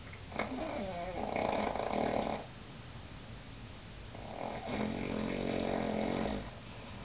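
A man snoring in his sleep: two long snores about four seconds apart, each lasting about two seconds.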